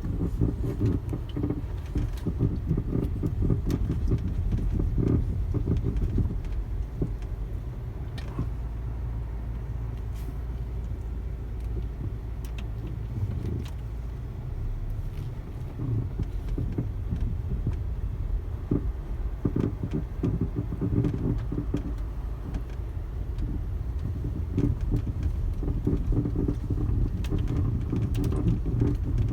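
Volkswagen Passat B6 on the move, with low road rumble and irregular creaks and knocks from the front suspension. The owner cannot tell whether the steering rack, a CV joint or a strut top bearing is at fault.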